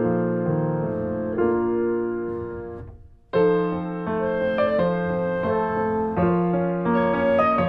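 Calm classical-style piano music. It dies away about three seconds in and starts again a moment later.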